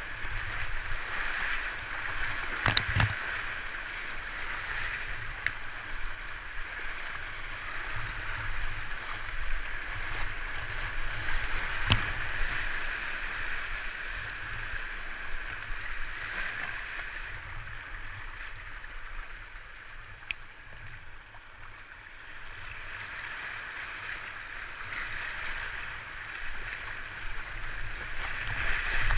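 Rushing whitewater and splashing around a kayak running a rapid, with the paddle working the water. Two sharp knocks stand out, about three seconds in and about twelve seconds in, and the water noise eases off for a few seconds past the middle.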